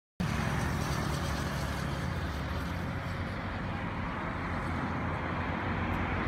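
Roadside traffic noise: a steady low rumble of vehicle engines and tyres. It cuts in abruptly just after the start and grows slightly louder towards the end.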